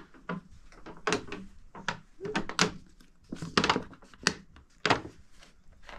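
A clear plastic bottle of liquid being handled: about a dozen irregular, sharp clicks and knocks of plastic and cap.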